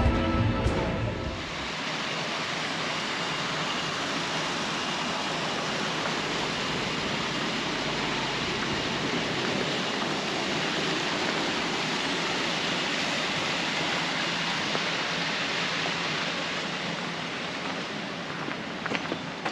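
Steady rushing of flowing water, an even noise without rhythm, after music fades out in the first second or two. A few faint clicks come near the end.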